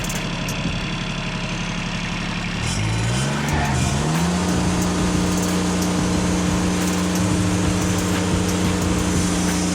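Wood-Mizer LX150 sawmill engine running steadily, then revving up with a wavering rise in pitch about three seconds in and holding a higher, steady speed.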